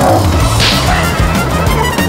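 Cartoon score with a steady bass line, and a quick swish sound effect a little over half a second in.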